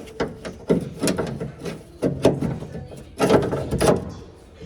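Repeated scraping and knocking against the metal of a van door, about eight strokes roughly two a second, as the latch area is cleaned.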